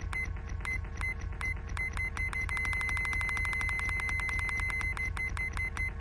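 Electronic beeps with sharp clicks over a steady low hum: the beeps repeat about two to three times a second, crowd into a near-continuous run through the middle, spread out again near the end, and finish on one held beep that cuts off suddenly.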